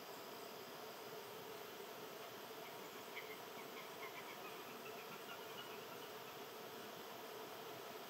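Faint, steady outdoor insect chorus, crickets among it, with a short run of faint high chirps about three seconds in.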